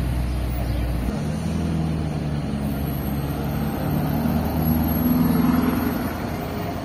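Lamborghini Urus twin-turbo V8 pulling away, its engine note rising and getting louder to a peak about five seconds in, then fading as it drives off. For about the first second there is a steady low rumble instead.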